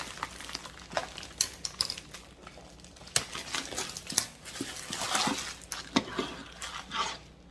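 Bamboo drawer-organizer pieces being handled and set down: scattered light wooden knocks and clicks, with some packaging crinkling.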